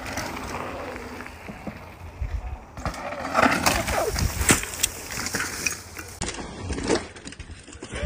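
Mountain bikes on dirt trails: tyres rolling and rattling over the dirt, then a crash with a burst of sharp clattering impacts a few seconds in as the bike and rider hit the ground.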